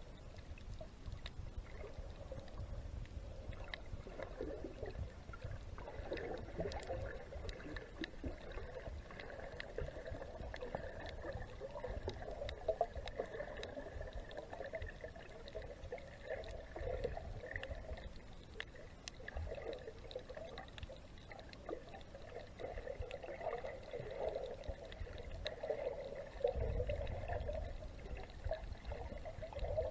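Underwater water sounds: continuous gurgling and sloshing over a low rumble, with scattered faint clicks.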